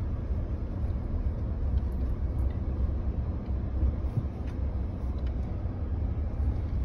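Steady low rumble of a car heard from inside its cabin while driving: engine and road noise.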